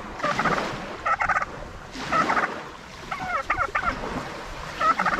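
Tom turkey gobbling several times in quick succession, each gobble a short rapid burst.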